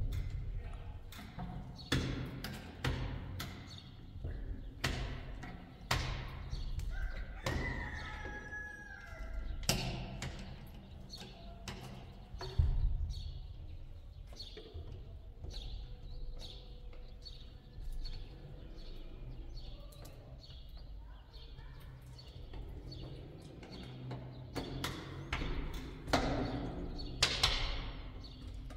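Irregular knocks and thumps over a low rumble.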